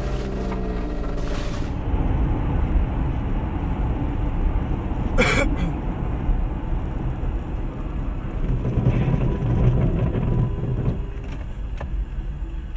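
Car on the road: steady engine and road noise, with one sharp bang about five seconds in.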